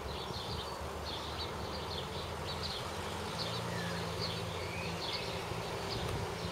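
Land Rover Series 3 engine running with a low, steady drone as the truck crawls through mud, its note changing about three seconds in. Birds chirp over it.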